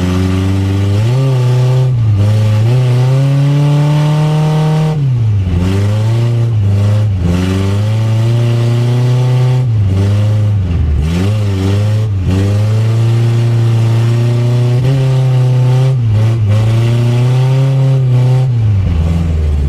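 Chevrolet Chevette's four-cylinder engine driven hard. The revs climb over a few seconds and then drop sharply, over and over, with a few quicker dips in between.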